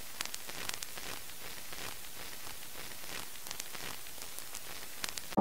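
Steady hiss with scattered faint crackling clicks, a few near the start and another near the end.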